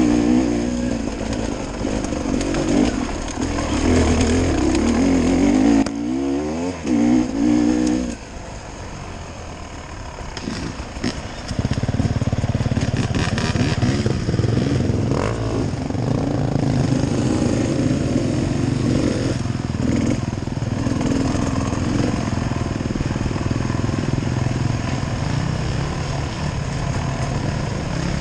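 Dirt bike engine revving and changing pitch under riding for the first several seconds, dropping quieter about eight seconds in, then running steadily again from about twelve seconds on.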